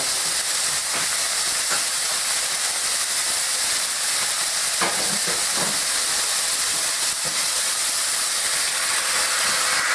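Meat and peppers frying in a pan, a steady sizzle.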